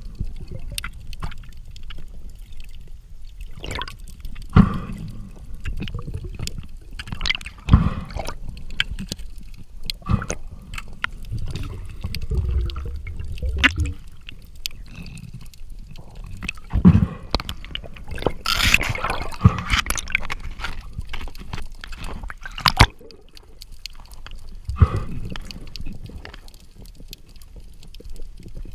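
Water heard through an underwater camera: gurgling and sloshing with a low rumble, broken by irregular sharp clicks and knocks, and a longer rush of bubbling noise about two-thirds of the way in.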